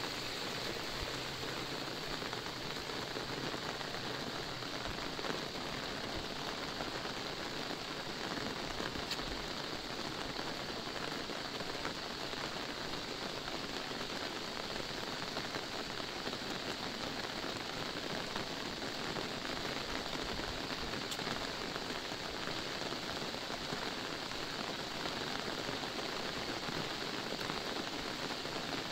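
Steady rain falling on an umbrella and a wet road, a dense even hiss with scattered single drop taps.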